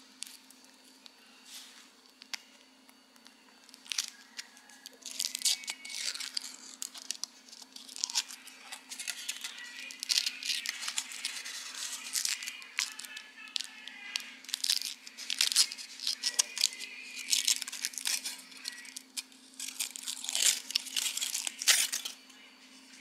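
Foil wrapper of a Kinder Surprise chocolate egg being peeled off by hand, crinkling and tearing in quick irregular bursts. It grows busy about four seconds in and runs on to near the end.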